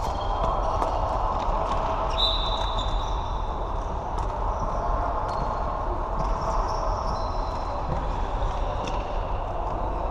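Floorball being played: short clacks of sticks and the plastic ball, with shoes squeaking on the court floor, the sharpest squeak about two seconds in, over a steady background noise.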